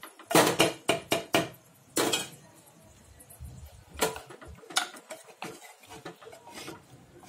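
A spatula knocking and scraping against a clay cooking pot as mutton curry is stirred. A quick run of sharp knocks comes in the first second and a half, then single knocks about two, four and five seconds in.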